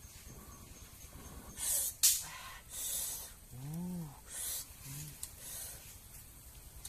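Short hissing scrapes of a wooden spatula stirring octopus pieces in a pan over a wood fire. An animal gives a short rising-and-falling whine a bit under halfway through and a shorter one about a second later.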